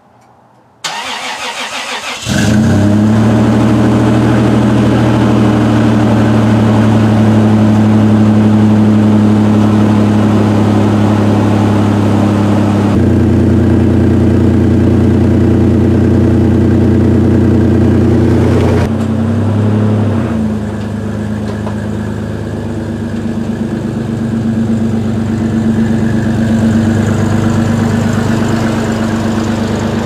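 A Toyota 3.4-litre V6 (5VZ-FE) breathing through a Flowmaster 50 Series muffler, started from cold. The starter cranks for about a second and a half, then the engine catches and settles into a steady, deep cold-start idle. The loudness shifts a couple of times during the idle.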